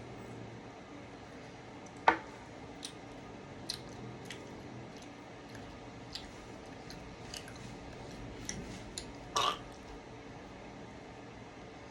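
A person chewing a piece of licorice candy, with scattered small wet mouth clicks and two sharper clicks, one about two seconds in and one near the end, over a low steady hum.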